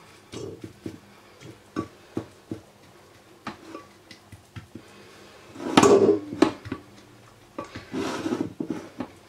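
Wooden spoon pressing and scraping buttered biscuit crumbs into a glass dish, with repeated short knocks of the spoon on the crumbs and glass. A longer, louder scrape about six seconds in and another run of scraping near the end.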